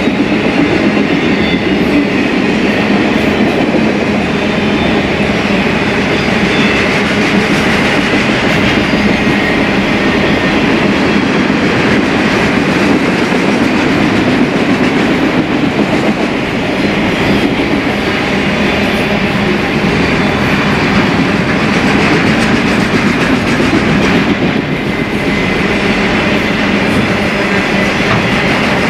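BNSF freight train rolling past close by: a loud, steady rumble of steel wheels on the rails, with clickety-clack over the rail joints.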